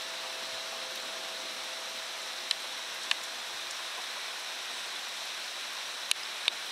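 Heavy rain pouring down in a steady hiss, with four sharp taps of drops striking something close by in the second half.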